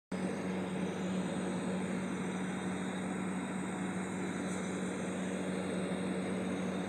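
Steady background noise: an even hiss with a constant low hum that does not change, cutting in abruptly at the start.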